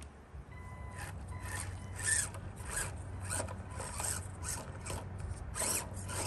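Small electric RC crawler truck driving up loose dirt and rock in short throttle pulses: repeated rasping bursts, about two a second, of its motor and tyres scrabbling for grip.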